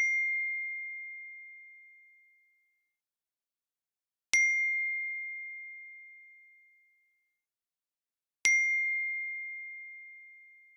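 A high, clear bell-like ding struck three times about four seconds apart, each strike ringing out and fading away over roughly two seconds.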